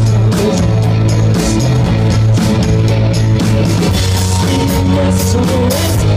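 Live rock band playing an instrumental passage: electric guitar, bass and a drum kit with steady, regular cymbal and snare hits.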